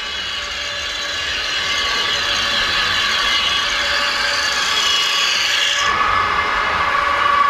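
Whirring gear noise of a radio-controlled scale fire truck's electric drive and gearbox as it drives past close by, growing louder. About six seconds in it gives way abruptly to a steady, pitched horn-like tone.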